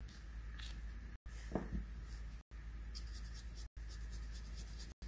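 Coloured pencil scratching on paper in back-and-forth colouring strokes, quicker and more rhythmic in the second half, over a low steady hum. A brief low sound comes about a second and a half in, and the audio cuts out for an instant about every second and a quarter.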